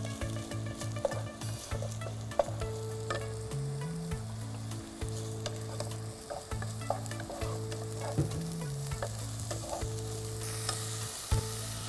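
Onion paste frying in hot oil in a pot, sizzling while a wooden spoon stirs it, with frequent short scrapes and taps of the spoon against the pan.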